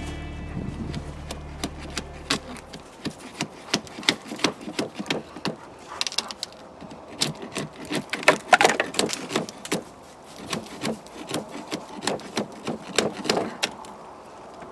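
Irregular wooden clicks, knocks and scrapes from a hive tool working on the wooden bars of a top-bar beehive, cutting and scraping comb off them.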